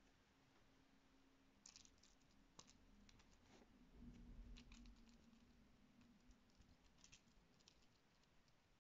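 Near silence with faint, scattered clicks and soft scratches from a kitten batting at a dangling toy mouse, and a low muffled rustle about four seconds in, when the toy swings close.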